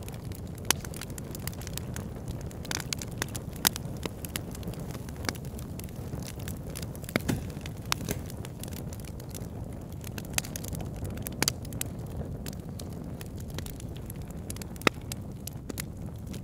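Wood fire in a fireplace crackling over a low steady rumble. Small ticks run throughout, and sharper pops stand out every few seconds.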